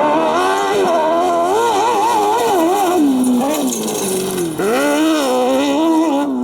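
Competition vehicle engine revving hard on a dirt slalom course, its pitch rising and falling quickly with the throttle, dropping sharply about halfway through and then climbing again.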